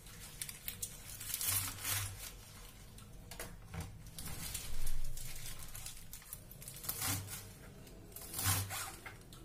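Kitchen knife chopping fresh spinach leaves on a white cutting board: irregular knocks of the blade on the board mixed with the crisp cutting of the leaves.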